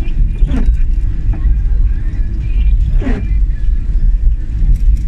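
Car cabin road noise: a steady low rumble of engine and tyres on a wet road, with two short swishes of the windscreen wipers, about half a second in and about three seconds in.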